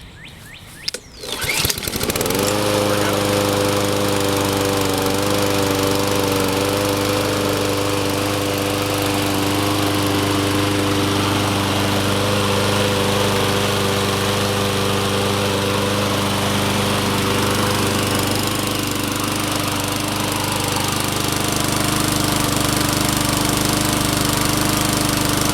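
Honda GCV160 single-cylinder OHC engine on a push lawn mower, pull-started and catching about two seconds in, then running steadily at constant speed. Its note shifts slightly about three-quarters of the way through.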